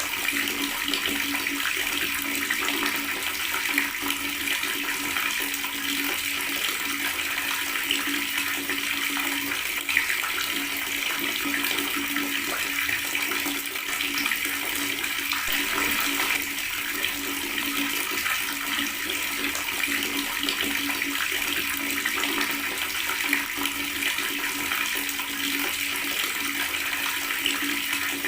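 Water running from a tap and gurgling, a steady splashing with small irregular spikes and no letup.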